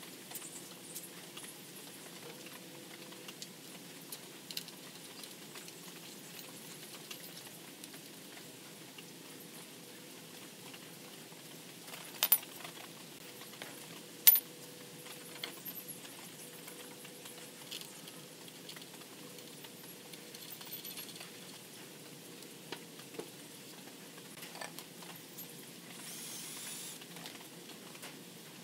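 Hands handling the wooden backrest parts and small metal hardware of a pallet-wood sun lounger: scattered light clicks and taps, with two sharper metallic clicks about two seconds apart a little before halfway, over a faint steady hum.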